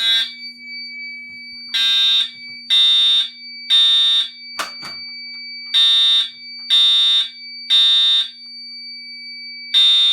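Fire alarm horn/strobe sounding the temporal-three (code 3) evacuation pattern: three loud half-second blasts about a second apart, then a pause, repeating. A pull station has tripped the system into general alarm. A faint steady high tone runs underneath, and there is a short knock about halfway through.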